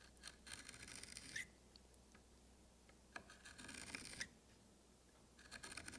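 Faint scratching of a marking knife scoring a layout line into elm, in two strokes about a second long each.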